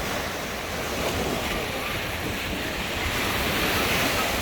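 Sea waves washing in, with wind buffeting the microphone in a steady low rumble.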